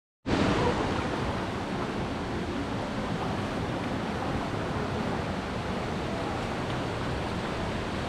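Steady rush of moving river water, with low, uneven wind buffeting on the action camera's microphone.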